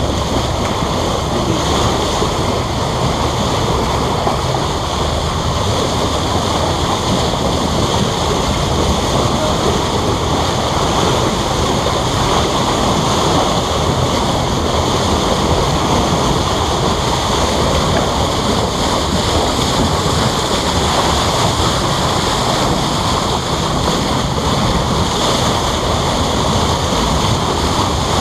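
Steady rushing noise of water streaming past a moving boat's bow, with wind buffeting the microphone.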